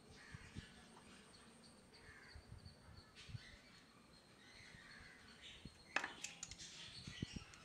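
Quiet background with faint bird calls and light clicks and taps from handling small plastic servo and bracket parts, with one sharper click about six seconds in.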